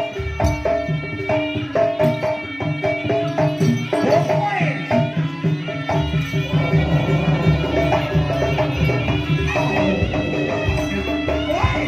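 Jaranan accompaniment music: a Javanese gamelan-style ensemble with kendang hand drums and tuned metal percussion playing a steady, rhythmic pattern of repeated ringing notes over drumming.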